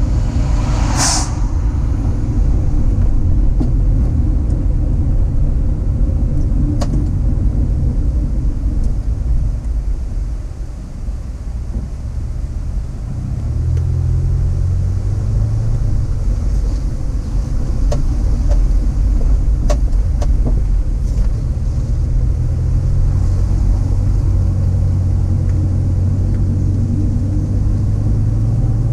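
Car driving along a road: a steady low rumble of engine and tyres, with a brief falling swish about a second in and a few light clicks.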